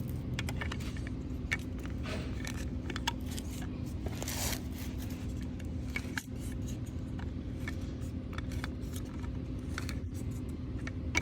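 Scattered light clicks and scrapes of a plastic pop-up sprinkler body being spun by hand into its underground fitting with an Underhill EasyOut tool. There is a longer scrape about four seconds in, over a steady low hum.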